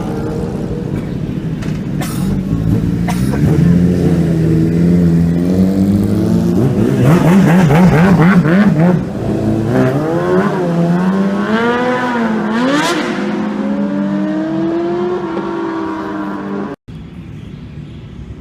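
Several sport-bike engines running at high revs on a race circuit, their pitch rising and falling as they rev, shift and pass. The loudest stretch, with rapid up-and-down warbles, comes around the middle. The sound cuts out for an instant near the end.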